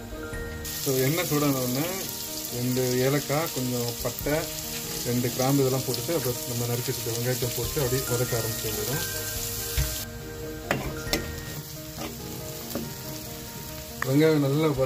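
Chopped onions sizzling in hot oil in a metal kadai, starting about a second in. After an abrupt break about ten seconds in, the frying is quieter and a metal ladle clicks and scrapes against the pan as the browning onions are stirred.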